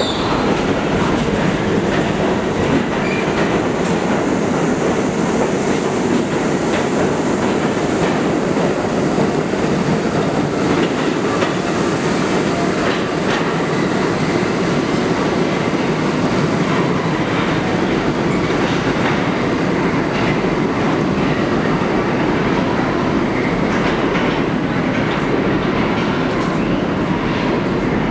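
R68A subway train running out of the station, a loud steady rumble of steel wheels on rail with scattered clicks as the wheels cross rail joints.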